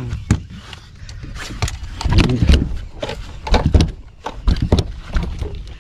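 Irregular knocks and thumps on the deck of a small fishing boat, the loudest about two seconds in and twice more later.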